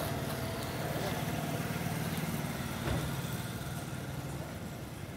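A steady low engine hum, with one short knock about three seconds in.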